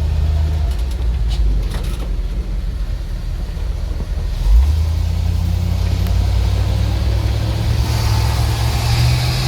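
ZIL truck's petrol engine running under way, pulling normally now that its overheating fuel pump has cooled. The engine eases off, picks up again with a bump about four and a half seconds in, and rises in pitch near the end.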